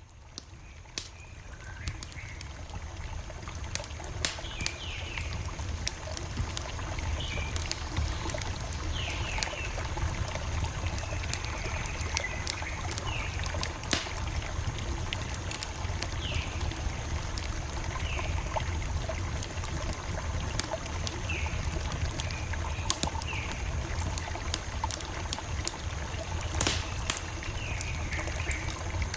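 Campfire crackling: a steady low rumble of the burning fire with frequent sharp pops and snaps, fading in over the first few seconds. Short falling animal calls repeat every second or two behind the fire, with a faint steady high whine.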